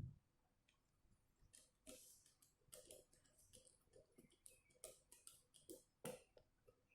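Faint, irregular light clicks and ticks of small tablet parts and a screwdriver being handled during reassembly of an Ntablet.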